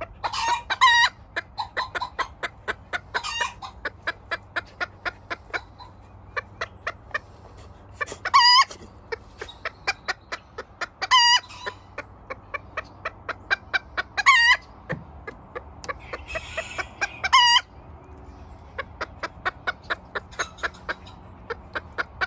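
Hens clucking in a quick, steady run of short notes, with a louder drawn-out squawk breaking in every few seconds.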